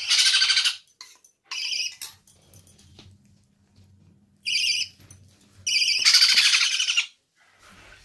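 Hungry parrot chicks giving food-begging calls while being hand-fed: a harsh, rapidly pulsing call at the start, short higher-pitched calls about two seconds in and again near four and a half seconds, and a longer harsh call from about six to seven seconds in.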